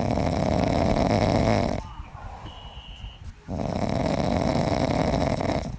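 Two long, loud snores about three and a half seconds apart, the sleeper deeply asleep.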